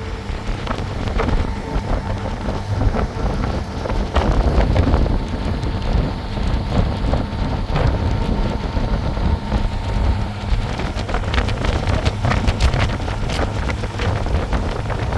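Strong wind buffeting the microphone, a loud, steady rush heavy in the lows, with scattered clicks and knocks.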